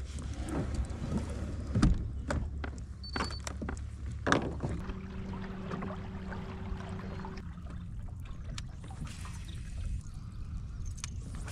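Water lapping and trickling against a plastic fishing kayak's hull, with scattered clicks and knocks of handled gear. A steady hum runs for a couple of seconds near the middle.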